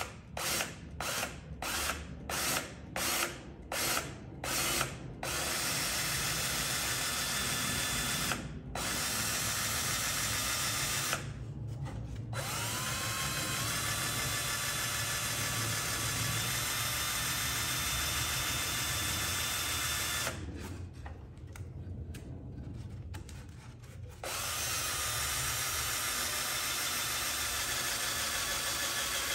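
Cordless drill boring out a broken exhaust stud hole in a VW 1600 dual-port cylinder head with the tap drill bit for an 8 mm × 1.25 thread. It starts with about nine short trigger pulses, then runs steadily with two brief stops. It breaks off in stuttering bursts about twenty seconds in, then runs steadily again near the end.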